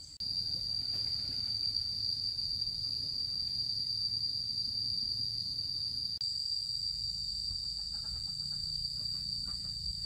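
Insects, cricket-like, shrilling in one steady high unbroken tone over a low rumble. The sound cuts in sharply just after the start and breaks off for a moment about six seconds in.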